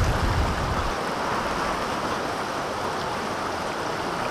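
Shallow mountain creek rushing over a rocky bed, a steady close hiss of running water, with a low rumble in the first second.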